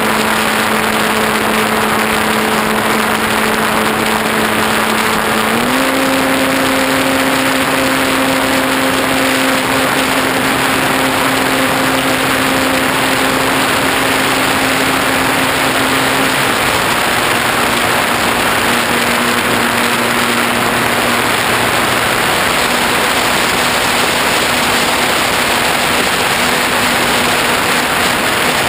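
Rush of airflow over a camera mounted on a ParkZone T-28 Trojan RC plane in flight, with the steady hum of its electric motor and propeller. The hum steps up in pitch about six seconds in as the throttle is opened, and falls back a little around sixteen seconds.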